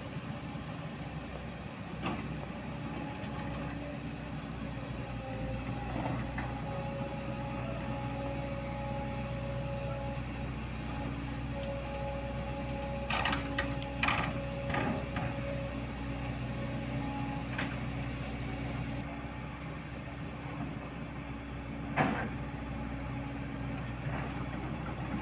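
Diesel engine of a Volvo crawler excavator running steadily, with a thin whine that comes in for several seconds in the middle. A few sharp knocks a little past halfway and one more near the end.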